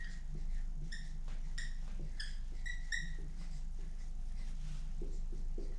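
A handful of short, high squeaks from a pen or marker writing on the lecture board, about a second into the pause and again up to about three seconds in, over a steady low room hum.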